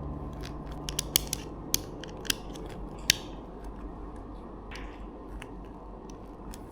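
Plastic Lego bricks clicking and snapping as they are handled and pressed together: a scatter of sharp, irregular clicks, the loudest about three seconds in, fainter ones after.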